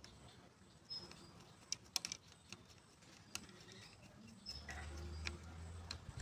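Scattered small clicks and taps of fingers and a tool on the nuts, studs and terminals of a Bosch alternator's regulator and rectifier end. A low steady hum comes in about four and a half seconds in.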